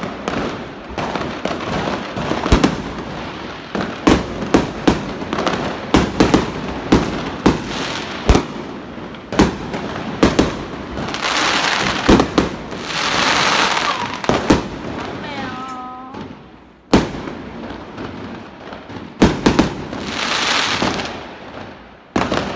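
Fireworks going off: a rapid string of sharp bangs and pops, with two stretches of dense crackling hiss lasting a few seconds each, one around the middle and one near the end.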